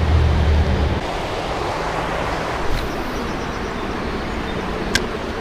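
Steady rushing of a rain-swollen creek, with wind on the microphone. A low hum stops about a second in, and a single sharp click comes near the end.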